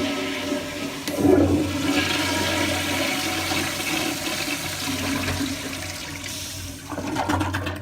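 Toilet flushing: a loud rush of water that surges about a second in, then runs steadily and eases off near the end, with a low hum under it.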